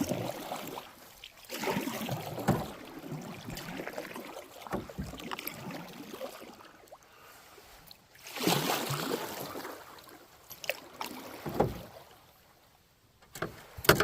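Canoe paddles stroking through the water, in several separate swishing, splashing swells, with a few short knocks.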